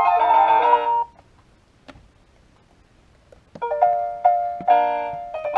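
Electronic jingle from a children's musical toy: a tinny, ringtone-like melody of quick notes. It cuts off about a second in, a single click follows near two seconds, and the melody starts again about three and a half seconds in.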